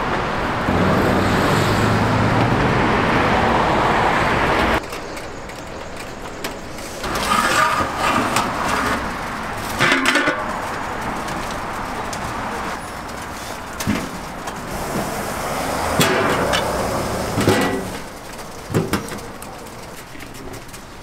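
Steady city street traffic noise, cut off sharply about five seconds in. Then a few scattered metal clanks as large aluminium steamer pot lids are lifted and handled.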